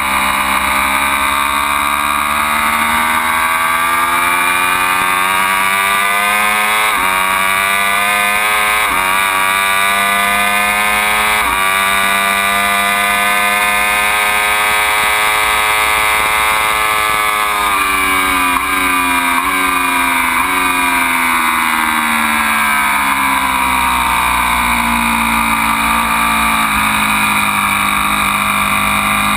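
Ducati Panigale V4's V4 engine pulling hard up through the gears, its pitch rising and breaking at three quick upshifts, holding high on a straight, then dropping at about eighteen seconds in with three quick throttle blips on downshifts for a braking zone before falling away through a corner and picking up again near the end.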